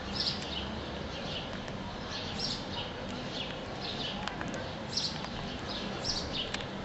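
Small birds chirping in short, high calls that come again and again, about one or two a second, over a steady background hiss. A couple of faint clicks about four seconds in.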